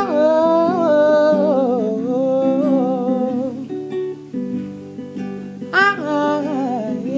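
A singer sings long, wavering notes of a Wolof song over plucked acoustic guitar. The voice pauses briefly partway through while the guitar plays on, then comes back near the end.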